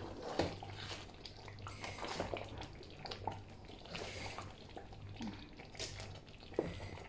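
Thick groundnut stew being stirred with a wooden spoon in a metal pot: wet squelching and sloshing, with a few sharp knocks of the spoon against the pot, the loudest about half a second in and near the end.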